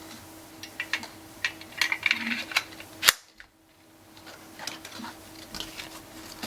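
Clicks and rattles from handling a pistol magazine and its packaging, with one sharp, loud click about three seconds in, followed by a brief near-silent gap and more rustling.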